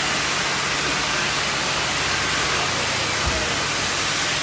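Steady, even hiss of background noise with a faint low hum, and a single dull low thump about three seconds in.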